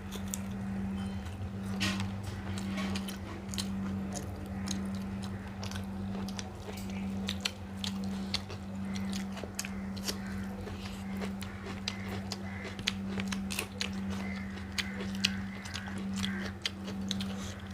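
Close-up eating sounds of rice and egg curry being eaten: many short, irregular wet clicks and smacks of chewing and mouthfuls. Under them runs a steady low hum that swells and fades evenly, a little more than once a second.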